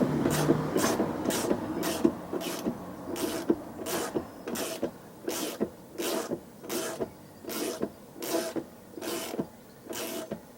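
A socket ratchet being worked back and forth in short strokes, each back-stroke giving a brief rasp of clicks at about two a second, to undo the bolt of the bottom shock absorber mount on a Vauxhall's rear axle.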